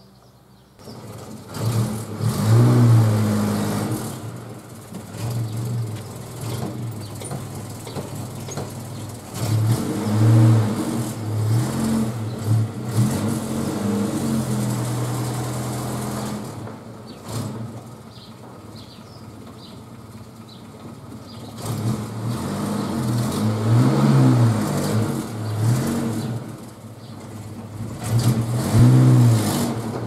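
Datsun 1200's engine running, revved up and let fall back to idle several times over.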